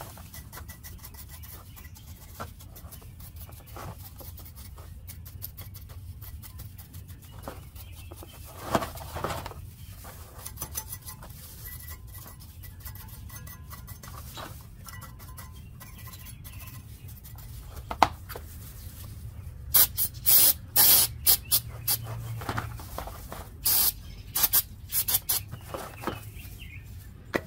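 Cleaning a front brake caliper bracket: a long stretch of small scraping and rubbing strokes. About twenty seconds in comes a run of short, loud hissing bursts.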